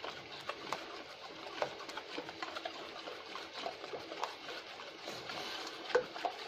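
Wire whisk beating thin gram-flour batter in a steel bowl: continuous wet swishing and slapping, with frequent light ticks of the whisk against the bowl.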